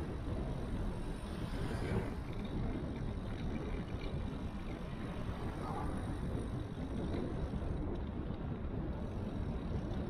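Steady low rumble of wind on an action camera's microphone, mixed with tyre noise from a bicycle rolling along an asphalt street.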